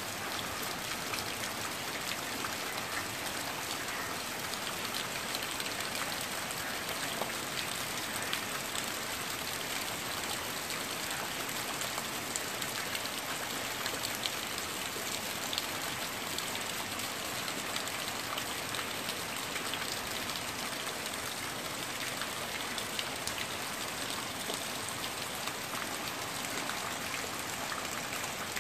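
Steady rain falling: an even hiss with many sharp individual drop hits.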